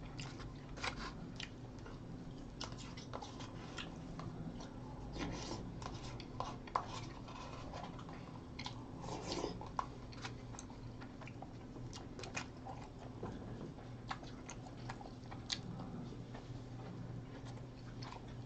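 A person chewing and smacking while eating grilled mackerel and rice, with many short, irregular mouth clicks. A steady low hum runs underneath.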